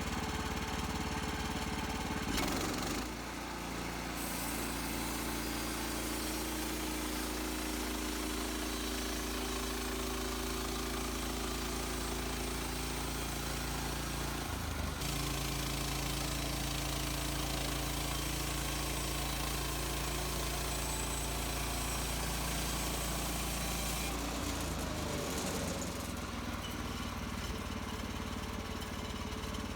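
Gas engine of a Woodland Mills HM130 Max portable bandsaw mill running steadily, its note changing about three seconds in, again midway, and once more near the end.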